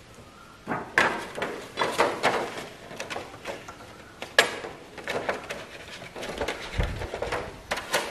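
Irregular clicks, knocks and light rattles of parts being handled inside a hybrid inverter's open metal chassis as a controller board and its cable connectors are fitted, with a dull thump about seven seconds in.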